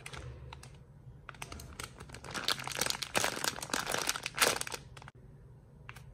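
Rapid crinkling and crackling as crinkly material is handled, a dense run of sharp crackles starting about a second in and stopping near the end, loudest just before it stops.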